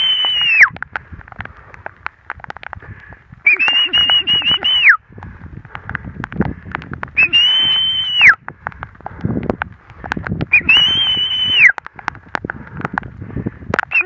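A man whistling to call a dog out of her den: long, high, single-pitch whistles about a second each, each dropping in pitch at its end, repeated about every three to four seconds, with a patter of raindrops between them.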